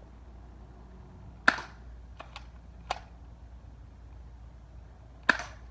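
Airsoft gun firing: two sharp pops about four seconds apart, with a few fainter clicks in between.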